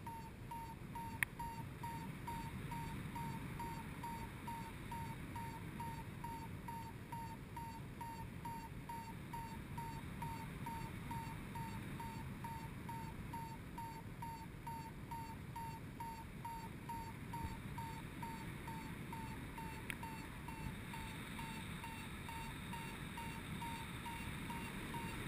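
Paragliding variometer beeping steadily, short even beeps at one pitch about twice a second: the audible climb tone that signals the glider is rising. Wind rushes on the microphone underneath, with a single sharp click about a second in.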